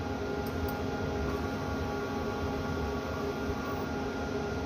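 Steady hum of running machinery: a low rumble with several steady tones over it. Two faint clicks come about half a second in.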